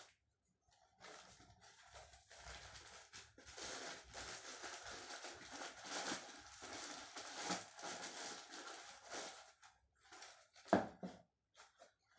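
Paper and plastic wrapping crinkling and rustling as it is handled for several seconds, followed by a single louder knock near the end.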